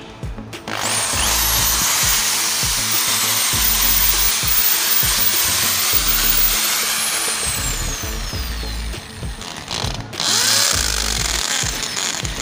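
Electric hammer drill boring into a concrete wall: a loud, steady grinding drill noise that starts under a second in, stops briefly about ten seconds in, then starts again. Faint background music runs underneath.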